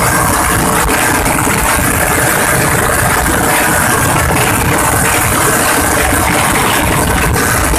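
Tuk-tuk (auto-rickshaw) engine running while riding along at speed, heard from on board under a loud, steady rush of noise that does not let up.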